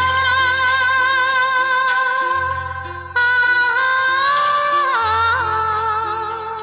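A Hindi film song: a singer holds one long note with vibrato, then slides down to a lower note about two-thirds of the way through, over instrumental accompaniment with a repeating bass.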